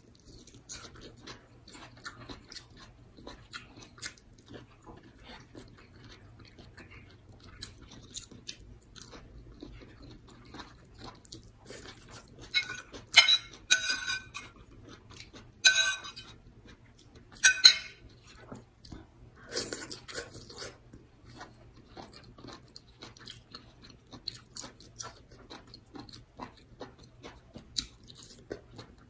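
Close-up chewing and mouth sounds of someone eating a vegetable dish and rice by hand, with small wet clicks throughout. In the middle, a metal spoon clinks and scrapes against a plate several times in quick succession.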